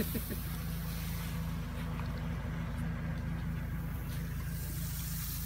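An engine running at a steady idle, a low even hum that does not change.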